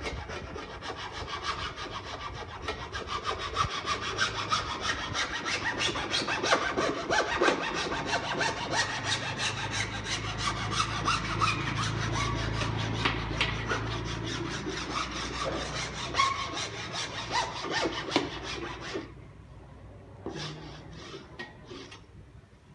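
Rapid, steady strokes of a hand saw cutting, repeated many times a second, which stop abruptly near the end, leaving a few faint knocks.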